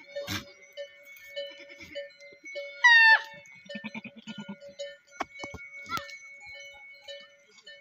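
Herd of goats on the move: one loud bleat about three seconds in, falling in pitch, then a lower bleat just after. A bell clinks over and over beneath them.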